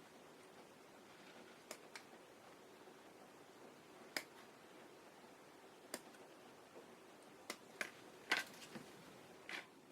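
Small sharp clicks and taps at irregular intervals, about nine in all, the loudest about eight seconds in: plastic model-kit parts and hobby tools being handled on a work surface.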